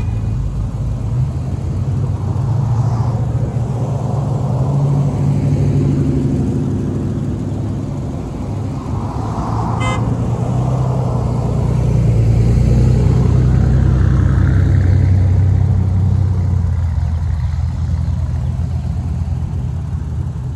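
A convoy of pickup trucks driving past one after another at road speed, engines running and tyres humming on the asphalt, growing louder as each one goes by. A short horn toot sounds about halfway through.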